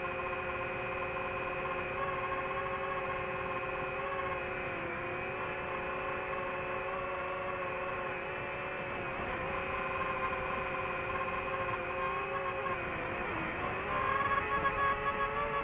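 DJI FPV drone's motors and propellers whining steadily in flight, one pitched hum with several overtones. The pitch sags briefly a couple of times, then climbs and gets louder near the end as the drone powers into a dive.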